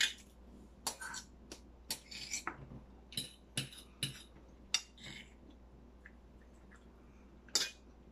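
Cutlery clinking against dinner plates in scattered short clicks, about a dozen over the first few seconds, then a pause of a couple of seconds before one more clink near the end.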